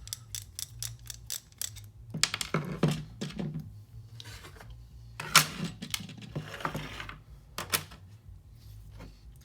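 A run of quick light clicks, then several louder clatters and knocks as a lock and small metal tools are handled on a workbench.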